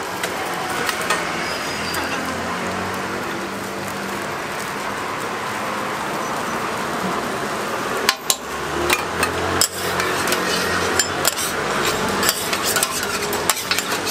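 Egg and pancake crust sizzling on an oiled flat-top griddle. About eight seconds in, a run of sharp metallic taps and scrapes begins as a metal spatula works against the griddle plate.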